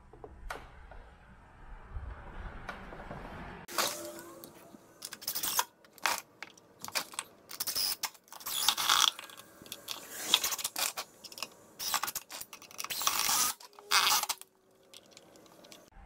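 A cordless DeWalt power driver runs in a series of short bursts, with brief pauses between them, as it drives screws through a PVC pipe cover into the underside of a camper.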